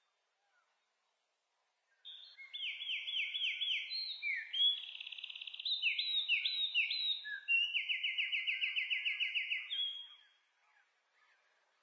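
A songbird singing a long, varied song of quick down-slurred notes and fast, even trills, starting about two seconds in and stopping near the ten-second mark.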